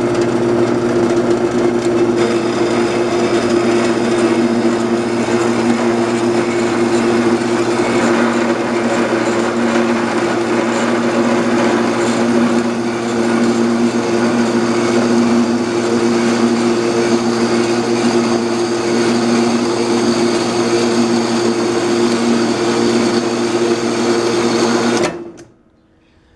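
Dayton metal-cutting band saw running steadily through a test cut in a piece of angle iron, its blade guide bearings freshly adjusted: a constant motor hum with a hiss of blade on steel, stopping suddenly near the end.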